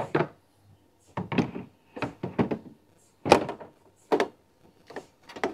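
Plastic MRI head and neck coil parts being handled, detached and set back down on a shelf: a string of separate knocks and clunks, roughly one a second, the loudest about three seconds in.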